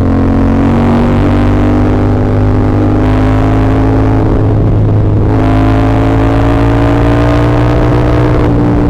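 CF Moto 450SR-S parallel-twin motorcycle engine pulling under load while riding, its pitch climbing slowly. There is a short break about five seconds in, then it climbs again.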